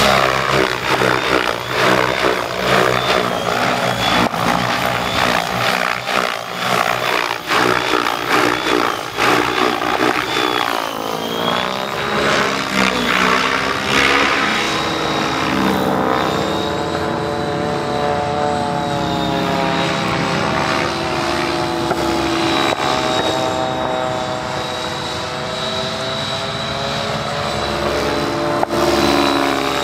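Electric Align T-Rex 700 DFC RC helicopter flying aerobatics: the main rotor blades chopping the air over a steady high whine from the electric drive. The first half is choppy, with rapid sharp blade slaps as the rotor pitch changes; later the sound smooths out and glides up and down in pitch as it passes.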